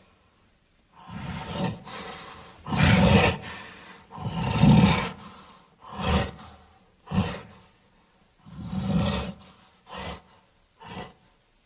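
Creature sound effects: a series of animal-like roars and growls, about ten separate calls with short pauses between them, the longer ones in the first half and shorter, clipped ones toward the end.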